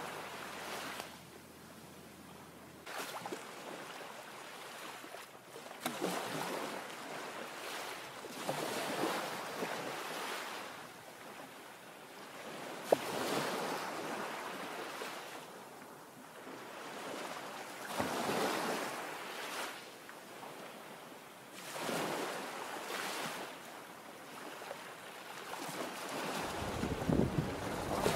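Small waves washing onto a pebble beach, swelling and fading every three to four seconds, with wind on the microphone. There is one sharp click a little before halfway. Near the end the water sound gets louder and busier.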